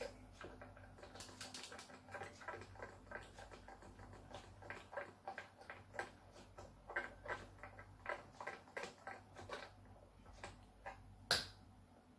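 Electric guitar tuning machines being turned by hand to slacken and unwind the strings: a run of small irregular clicks and ticks, a few a second, with a sharper snap about eleven seconds in as a string comes free of its post.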